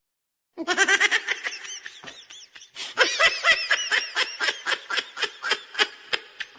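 High-pitched laughter in quick repeated bursts, several a second. It starts about half a second in, eases off briefly before the 3-second mark, then comes back louder.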